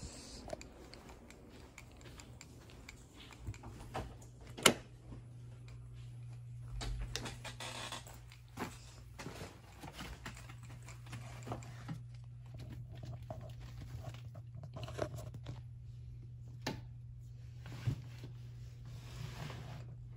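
Scattered rustling, crinkling and clicking of handled household objects, with one sharp click about four and a half seconds in, over a steady low hum.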